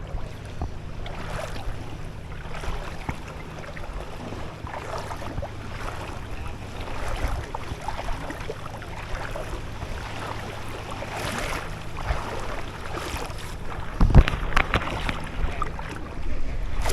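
Wind rumbling on the microphone over water splashing and lapping in the shallows, with irregular small splashes throughout and a sudden louder thump about fourteen seconds in.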